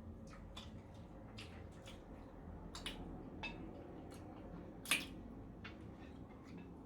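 Eating at a table: faint wet chewing and small clicks of utensils on a plate, with one sharper click about five seconds in.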